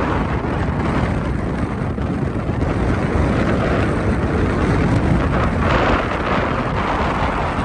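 Wind buffeting the microphone: a steady, loud low rush of wind noise.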